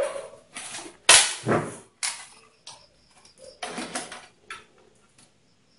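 Handling noises from hands moving a small cooling fan, its wires and the open UPS casing on a wooden table: a series of short knocks, clicks and rustles, the loudest about a second in.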